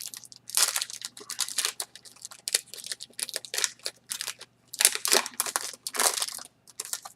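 Trading-card packaging and cards handled by hand: crinkling and rustling in irregular bursts as the pack is opened and the cards are pulled out.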